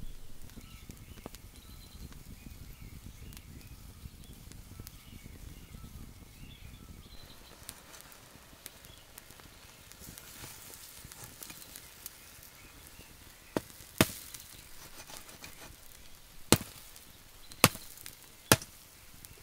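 Machete blade knocking against a chicken roasting on a bamboo spit, five sharp knocks in the second half, over the faint crackle of a charcoal fire.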